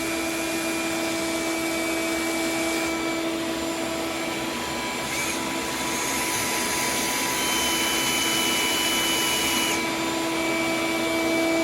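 Vacuum running with a steady whining hum. A rougher hiss of 120-grit sanding on the cured resin fill coat rides over it from about three seconds in until near the end.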